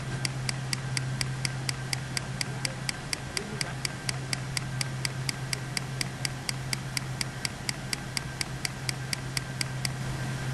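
Computer mouse button clicked over and over, about four sharp, even clicks a second, stopping near the end, over a steady low hum.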